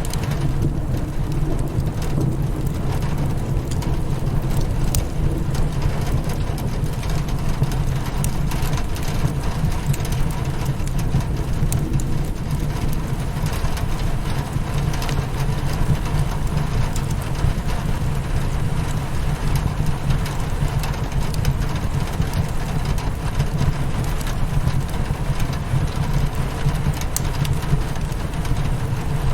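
Steady rain on a window mixed with a crackling wood fire: an unbroken wash of noise, heaviest in the low rumble, with scattered small sharp crackles.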